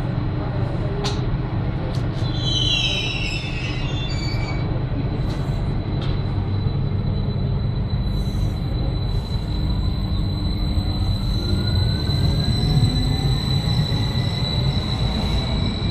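Stadler FLIRT Type 74 electric train running, heard from on board: a steady low rumble of the running gear, with a brief cluster of high squeals falling in pitch about two seconds in. From about halfway a whine rises slowly in pitch as the train gathers speed.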